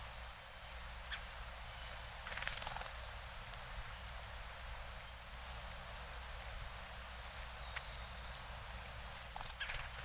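Northern cardinals giving short, sharp, high chip calls, scattered singly about once a second, with a couple of short rustles.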